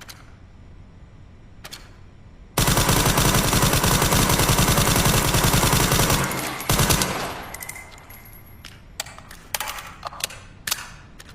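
Suppressed SIG Sauer MCX Virtus rifle firing a long fully automatic burst lasting about three and a half seconds, then a brief second burst that trails off. A few sharp clicks follow near the end.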